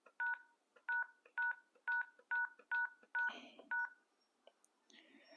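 Keypad key tones from a GSM fixed wireless desk phone: eight short two-tone beeps, the same pair each time, about two a second, as a key is pressed repeatedly to step through the phone's menu.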